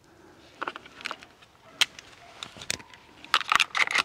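Hunting rifle being reloaded: a series of sharp metallic clicks and small rattles as cartridges are loaded, spaced out at first and coming thick and fast near the end.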